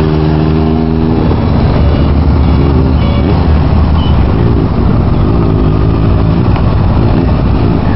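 Motorcycle engines at low speed: one bike's engine rises in pitch and holds steady for about a second as it leans through a slow turn, then its note drops back into a rough, even rumble, with the engine pitch rising and falling again past the middle.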